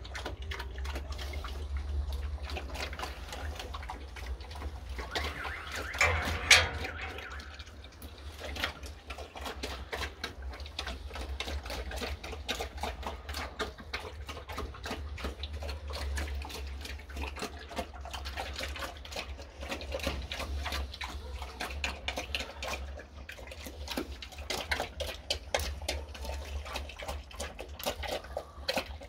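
Large pig eating liquid swill from a trough: rapid wet slurping and chomping. A brief louder, pitched sound comes about six seconds in.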